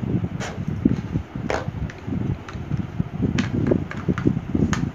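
Steady rumble of an electric fan, with several short sharp clicks and taps as small makeup items and hands are handled.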